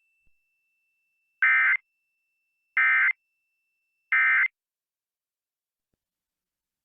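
Three short bursts of Emergency Alert System digital data tones, about a second apart: the end-of-message code that closes the alert broadcast.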